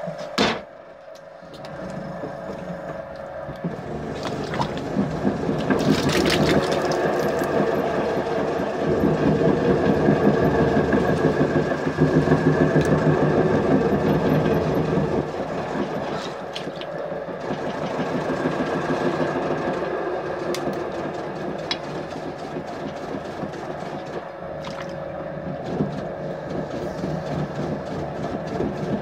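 Potter's wheel running with a steady motor hum while wet clay is worked by hand on it, loudest in the middle stretch as the lump is centered, then quieter as it is opened. A single slap about half a second in as the clay lump lands on the wheel head.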